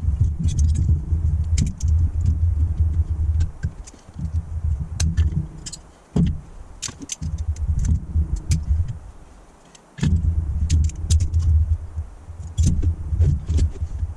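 Holley four-barrel carburettor being taken apart: many short metallic clicks and clinks of tools and small carb parts, over a low rumble that drops out twice and comes back abruptly about ten seconds in.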